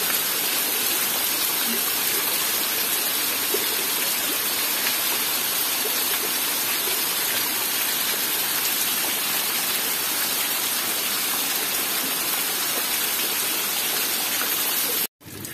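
Rainwater gushing steadily from a roof spout, an even, constant rush of water; it cuts off suddenly near the end.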